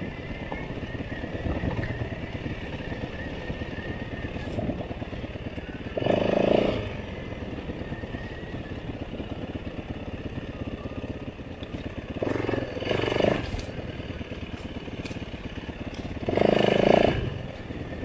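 Motorcycle engine running while riding, a steady pulsing drone with three louder surges: about six seconds in, around twelve to thirteen seconds, and near the end.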